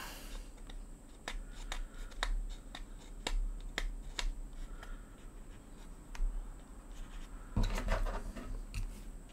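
Fingers working masking tape along the fin of a plastic model: scattered small clicks and crackles of tape and plastic, with a burst of louder handling bumps near the end.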